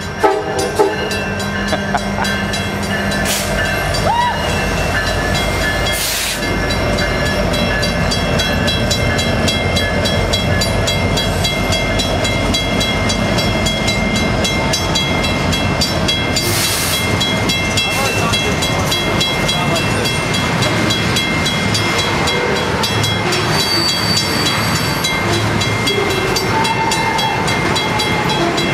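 Union Pacific rail train passing close by with steady, loud wheel-on-rail rumble and clatter, and a few sharp knocks in the first second.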